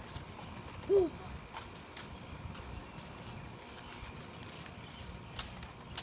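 A bird chirping: short high chirps repeating roughly once a second, with a louder short low call about a second in.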